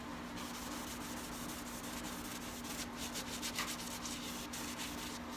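Paper towel rubbing over a freshly oil-quenched steel knife blade, wiping off the quench oil in a run of short strokes, over a steady low hum.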